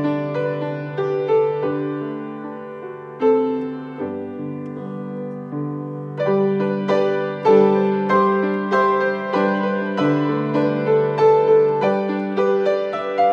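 Solo acoustic grand piano playing a hymn. A chord struck about three seconds in is left to ring and fade, and fuller, steadier playing picks up again around six seconds in.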